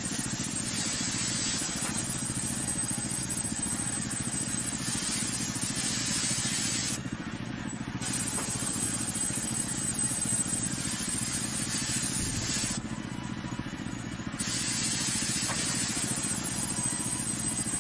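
Band sawmill running, its motor drumming steadily while the blade hisses through a log; the cutting hiss drops away twice for a second or so.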